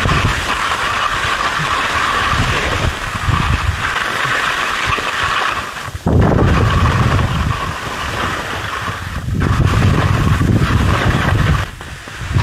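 Skis scraping over firm, rippled snow on a fast descent, with wind rumbling on the microphone. The scraping breaks off for an instant about six seconds in, then carries on.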